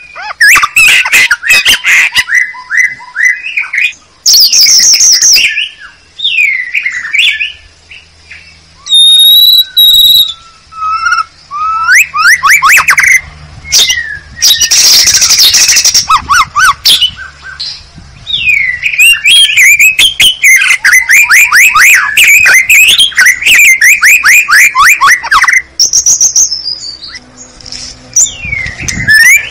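White-rumped shama (murai batu) song played at full volume as a lure call (suara pikat) to draw in wild shamas: fast runs of repeated sweeping notes and whistles, with harsh noisy calls about 4 and 15 seconds in and short pauses between phrases.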